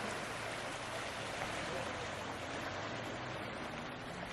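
Steady rushing water, an even noise without breaks.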